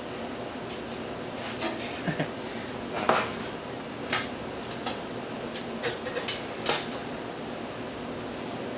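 Light metallic clinks and rattles, about eight scattered strikes, the loudest about three seconds in, from the stripped metal parts of a box fan being handled, over a steady background hum.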